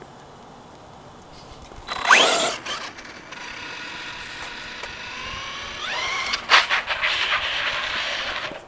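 Brushless electric motor and geartrain of an FS Racing Victory X RC truck whining as it launches: the pitch climbs sharply about two seconds in, settles into a steady high whine, rises again about six seconds in with a few sharp clicks, and cuts off near the end.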